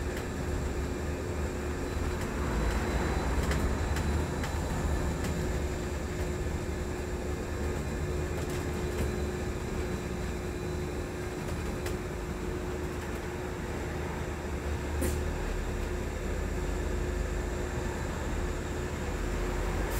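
Cabin noise on the upper deck of a Wright Electroliner battery-electric double-decker bus under way: a steady low rumble with a constant hum, and a few light rattles and clicks scattered through it.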